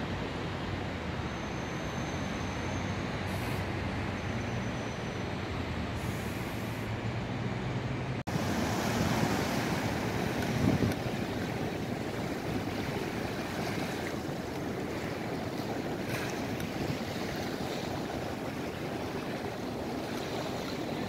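Steady city traffic with a low engine hum. After a sudden cut about eight seconds in, wind and water lapping at a waterfront take over, with a louder rush a couple of seconds later.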